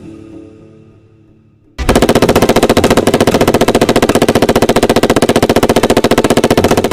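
KMG-556 5.56×45mm light machine gun firing one long, unbroken automatic burst of rapid, evenly spaced shots, starting sharply about two seconds in. Background music fades out just before the burst.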